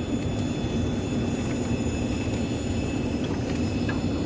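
Steady hum and whine of aircraft machinery, a low drone under several fixed high-pitched tones that hold without change.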